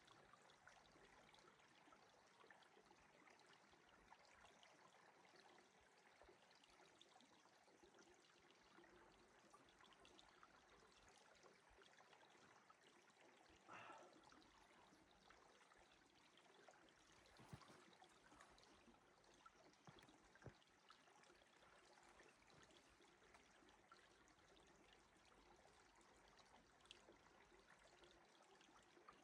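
Near silence: a faint steady hiss of outdoor ambience, with a few soft clicks.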